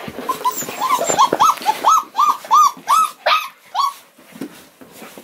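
Anglo Wulfdogs whining and yipping: a string of short, high-pitched whines that rise and fall, about three a second, dying away about four seconds in.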